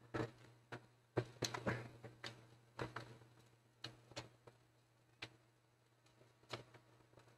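Scattered plastic clicks and knocks from a Compaq CQ41 laptop's casing and display being handled and shifted during disassembly, about a dozen irregular taps with the loudest a little over a second in, over a faint steady low hum.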